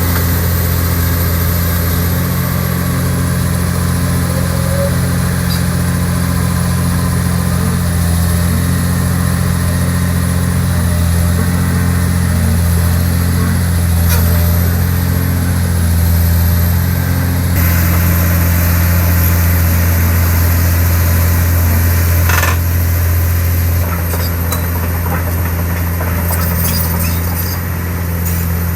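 Komatsu long-reach excavator's diesel engine running steadily with a constant low hum, its sound shifting slightly about two-thirds of the way through.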